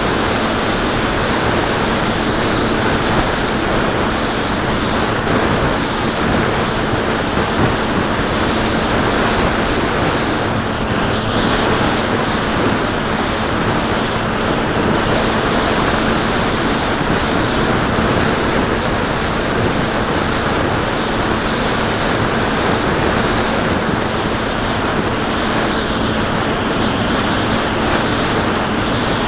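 Steady rush of airflow over the onboard camera of a Bixler 2 foam RC plane in flight, mixed with the steady drone of its Turnigy brushless motor and 8x5 pusher propeller, with a low steady hum underneath.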